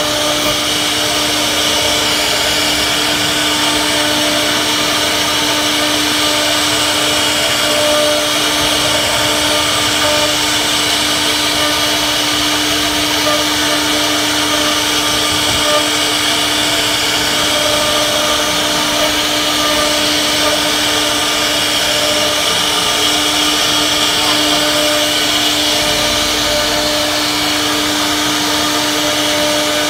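CNC router spindle cutting grooves into a solid wood door panel: a steady high whine over the hiss of the bit chewing through the wood.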